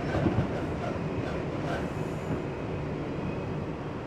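Inside an NYC Subway R62A car pulling into a station: a steady rumble of the wheels on the rails, with a few clacks near the start. The sound eases gradually as the train slows.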